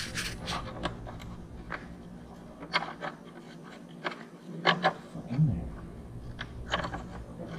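Scattered light clicks and scrapes of a hand working at the turbocharger's electronic wastegate linkage in the engine bay, under a low background hum that drops out for a couple of seconds midway.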